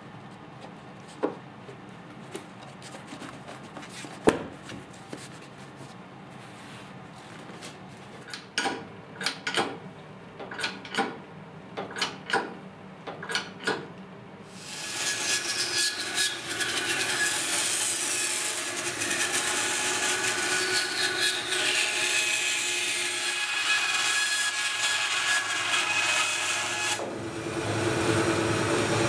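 Scattered clicks and a quick run of about eight knocks as the wooden board is handled and clamped, then about halfway a power saw starts cutting end-grain hardwood and runs steadily, loud; near the end a bandsaw runs through the round board.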